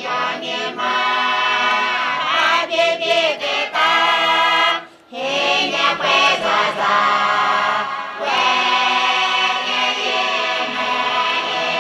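Lisu choir singing, several voices together in harmony in long held phrases, with a short break about five seconds in.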